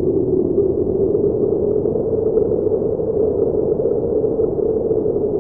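A steady, muffled low drone with no beat or distinct events, like a dark ambient sound effect.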